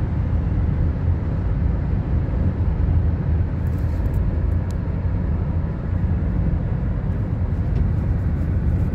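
Steady rumble of road noise from a car moving at highway speed, heavy in the low end.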